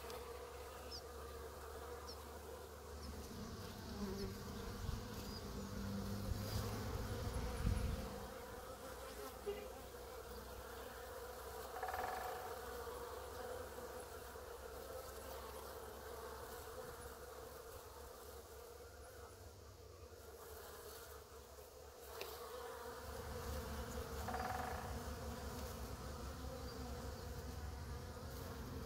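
Honey bees buzzing in a crowd around a spray-bottle nozzle as they feed on sugar syrup: a steady hum, with single bees passing close and louder twice, about twelve and twenty-four seconds in. A low rumble underlies it at times.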